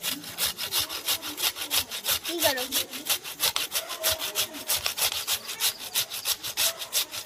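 Peeled raw potato being grated on a flat stainless-steel hand grater, a steady rasping scrape repeating about five times a second.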